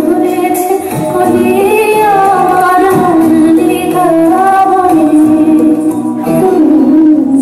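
Music with a woman singing a melody over a steady held drone.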